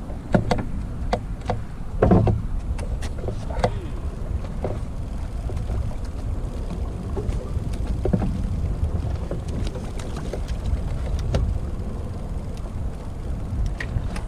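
A fishing boat on the water: a steady low rumble of engine and water noise, with scattered sharp knocks and clicks and a louder thump about two seconds in.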